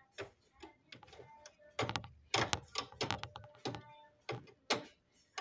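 Small hard plastic toy figures handled and knocked against a toy dollhouse floor: a run of irregular clicks and knocks, thickest from about two to four seconds in, with a few more single knocks near the end.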